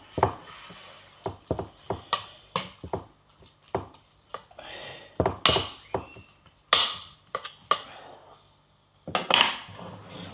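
Irregular clinks and knocks of dishes and cutlery, a few of them ringing briefly.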